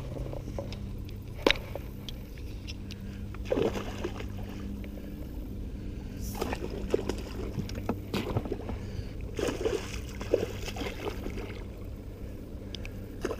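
A hooked fish fighting on the line beside a small fishing boat: irregular splashes and water sloshing over a steady low hum.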